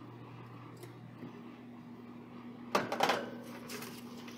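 Metal sheet pan clattering against the oven rack as it is slid into a wall oven: a quick burst of metallic knocks and rattles about three seconds in, with a few lighter scrapes after.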